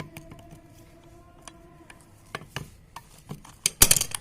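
Metal clicks, knocks and scraping as the V-type pulley is unscrewed and pulled off a small sewing machine motor's shaft, with a louder clatter near the end.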